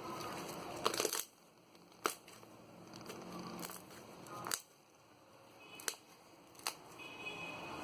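Homemade slime being squeezed and stretched by hand, giving several sharp clicking pops of trapped air, the loudest cluster about a second in.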